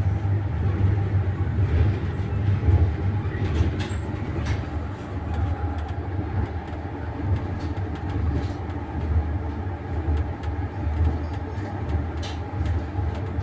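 Moving passenger train heard from inside a compartment of a double-decker carriage: the wheels on the rails make a steady low rumble, with a few light clicks and rattles.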